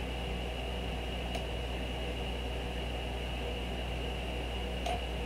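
Steady background hum and hiss with a faint high whine, typical of a home recording setup's noise floor, with two faint clicks, one early and one near the end.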